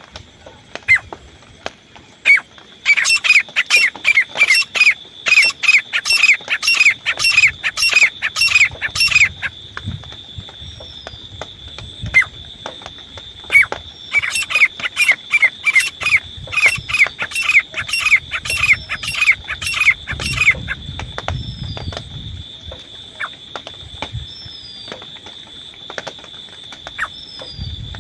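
Francolin (teetar) calling in two long runs of quickly repeated, down-slurring notes, about two to three a second, with a pause between the runs. A steady high whine runs underneath, and another bird gives a few faint falling chirps.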